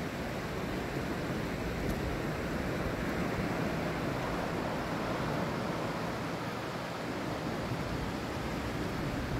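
Small ocean waves breaking and washing up a flat sandy beach: a steady, even surf rush.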